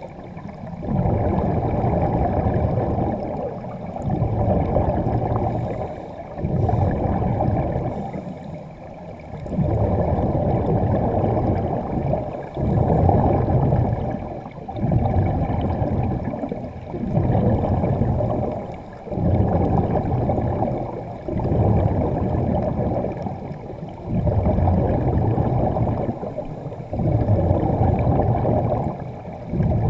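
Underwater breathing from a diver's air supply close to the camera: bubbling and hiss that surge and fade in a regular rhythm, about one surge every two seconds, with the sound dull and low.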